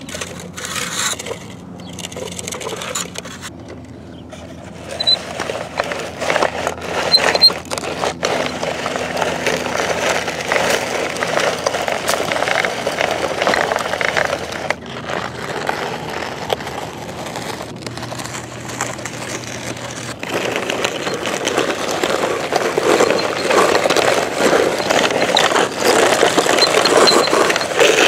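Tonka toy bulldozer pushed through sand, its blade and tracks scraping and crunching the sand in a steady gritty rasp. The first few seconds are quieter and sparser, and the scraping is continuous from about five seconds in.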